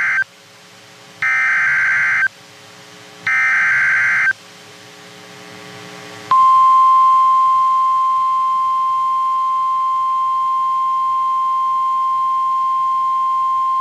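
NOAA Weather Radio alert tones: the end of the first of three Specific Area Message Encoding (SAME) header data bursts, then two more bursts of about a second each, two seconds apart. About six seconds in, the steady 1050 Hz warning alarm tone begins and holds. Together they open a severe thunderstorm warning broadcast.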